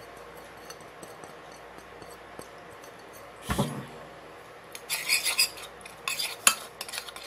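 A single dull thump about three and a half seconds in, then a utensil clinking and scraping against a ceramic plate in quick strokes, stirring a herb and olive oil marinade.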